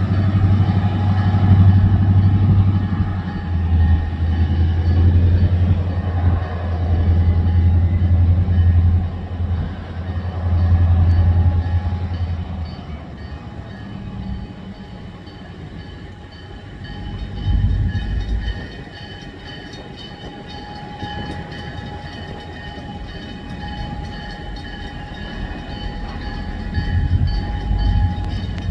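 EMD SD40-2 diesel-electric locomotive, with its 16-cylinder two-stroke engine, running close by with a heavy low rumble. After about 13 seconds the rumble drops away, leaving the quieter rolling of the train going past, with a couple of brief low swells later on.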